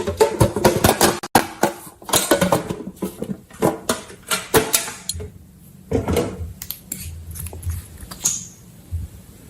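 Slime being worked by hand or stirred in a container: a dense run of irregular sticky clicks and pops that thins out and stops about a second before the end.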